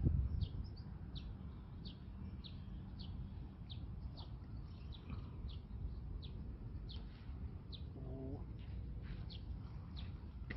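A bird calling over and over with short, high, down-slurred chirps, about two a second, with a brief lower call about eight seconds in. Wind rumbles low on the microphone underneath.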